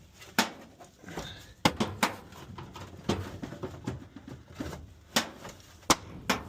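Irregular sharp clicks and knocks, about seven loud ones, over continuous rustling and clatter: the furnace's drain parts and panels being handled and fitted back together.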